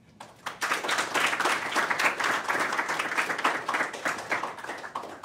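Audience applauding, the clapping building up within the first second and dying away near the end.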